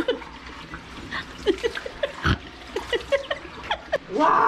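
A person's short gasps, huffs and whimpers, reacting to the burn of a hot pepper in the mouth, with a thump about two seconds in.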